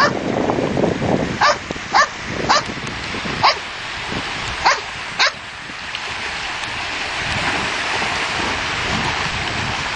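A dog barking, six sharp barks over about four seconds, over the steady wash of surf breaking on the beach; after the barks only the surf is heard.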